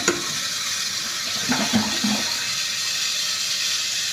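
2014 Western Pottery Aris toilet flushing: a steady rush of water, with a sharp click just after the start.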